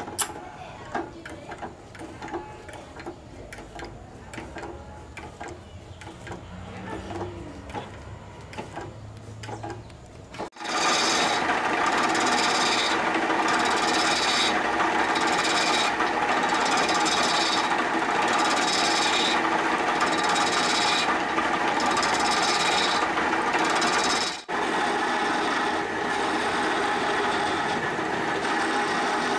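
Clicks and knocks of a wrench tightening a wooden blank into a lathe's metal chuck. About ten seconds in, a loud, steady rasping starts as a toothed scraping tool cuts the spinning wood, swelling about once a second. There is a momentary break near the end.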